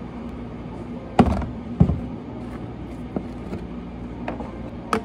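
Steady low hum with two loud knocks a little over a second in, about half a second apart, followed by a few lighter clicks and taps.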